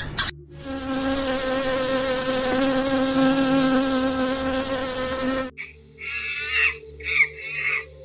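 A bee buzzing steadily for about five seconds, then stopping abruptly, followed by a string of short calls in the last couple of seconds.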